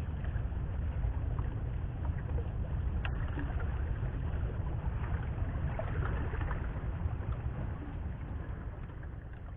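Steady low rumble of wind and water at sea, with a few faint clicks, fading out near the end.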